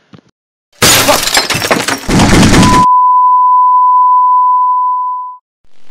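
A sudden loud crashing burst of noise lasting about two seconds, then a steady single-pitch beep held for about two and a half seconds that cuts off: sound effects as the recording goes dead.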